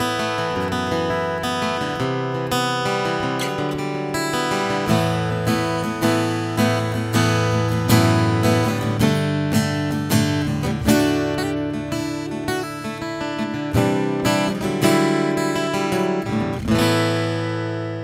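Gibson L-00 Standard parlor-size acoustic guitar (mahogany back and sides, Sitka spruce top) played solo, with picked chords and melody lines that ring on. Its low end is tight and focused. Near the end a final chord is left to ring and fade.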